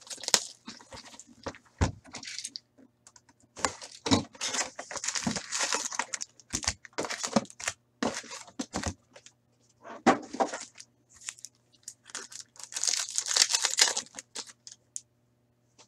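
Plastic shrink-wrap being torn off a Fleer Ultra hockey card box and crinkled, then the cardboard box and card-pack wrappers being handled and torn open. The sound comes in several bursts of crackling and rustling with short pauses between them.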